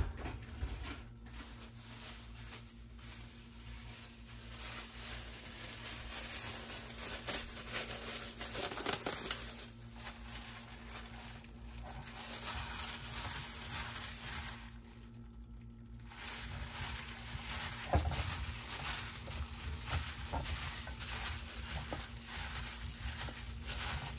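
A gloved hand tossing oiled, spiced potato slices in a ceramic bowl: the disposable plastic glove crinkles while the wet slices squish and slide against each other, in spells broken by short pauses. A sharp knock at the very start.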